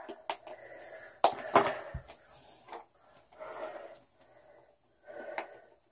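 A small candy wrapper being handled and unwrapped by hand: scattered crinkles and clicks, the sharpest pair about a second and a half in, then softer rustling.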